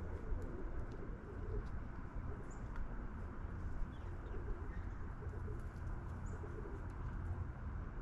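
Doves cooing in repeated low phrases, with a few short high chirps from small birds, over a steady low rumble.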